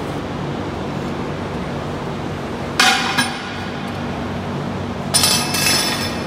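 Steel tire tool clanking against a truck wheel rim, once about three seconds in and again near the end, where it rattles longer with a metallic ring, over a steady low hum.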